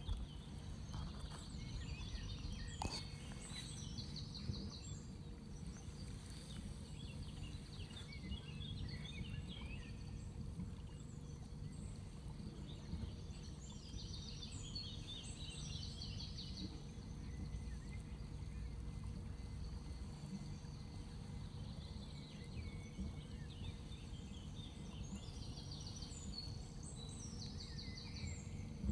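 Low, steady rumble of a boat engine running slowly, with songbirds singing short high trills and chirps three times: near the start, in the middle and near the end.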